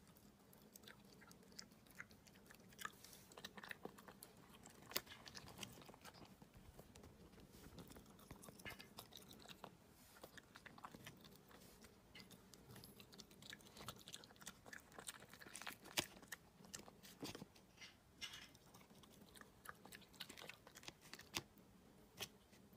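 Pembroke Welsh corgi puppy chewing and biting pieces of fruit taken from a wooden pick: a faint, irregular run of small mouth clicks and smacks.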